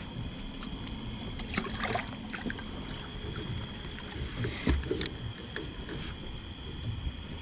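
Low steady rumble of water and wind around a fishing boat, with a few light knocks and clunks of gear on the boat deck about a second and a half in and again near five seconds. A faint steady high-pitched tone sits under it throughout.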